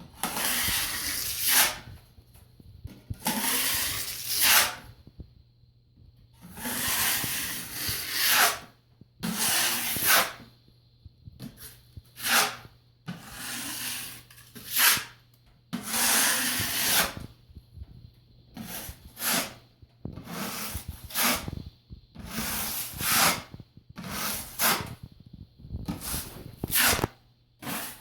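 A 10-inch drywall blade scraping joint compound across a ceiling, spreading and feathering it out in repeated strokes, each a short rasping scrape every second or two.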